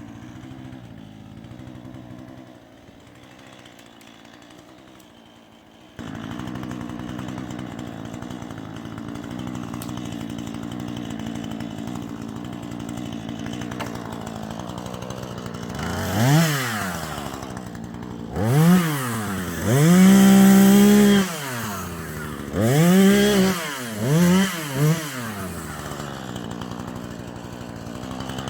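Husqvarna 440e two-stroke chainsaw idling, then revved up and let back down about half a dozen times in the last third, once held at high revs for about a second before it settles back to idle.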